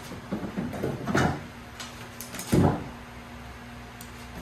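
Knocks and clunks as a small Tohatsu outboard motor is handled and lifted against a jon boat's transom jackplate: a cluster of knocks in the first second or so, then a heavier thud about halfway through.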